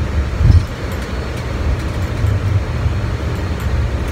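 Steady low rumble on the flight deck of a Boeing 767 taxiing after landing, with one low thump about half a second in.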